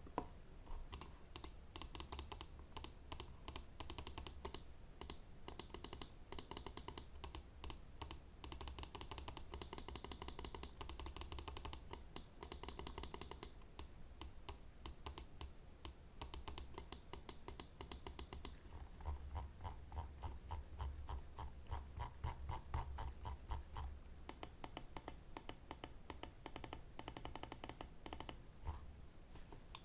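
Pulsar X2 Mini Premium Black gaming mouse, its Huano microswitches clicked rapidly over and over. About two-thirds of the way through, the clicks turn duller and less crisp, as a different button is worked.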